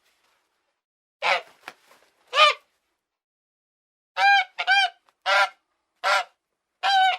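Goose honking: three harsh nasal honks, then after a pause a quicker run of five more.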